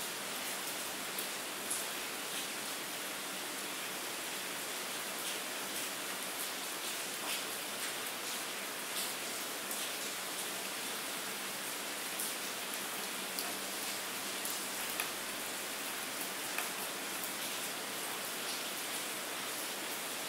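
Steady rain: an even hiss with scattered single drops ticking through it.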